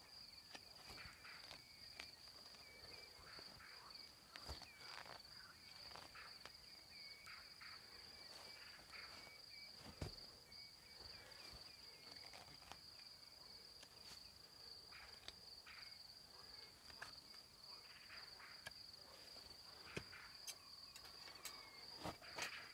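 Crickets trilling continuously at a high, steady pitch, with scattered light clicks and knocks and one louder knock a little before halfway.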